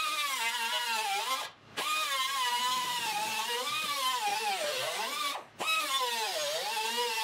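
Pneumatic cut-off wheel cutting rusted car-body sheet steel, its whine sagging and rising as the disc bites into the metal and frees up. It stops briefly twice, about a second and a half in and again about five and a half seconds in.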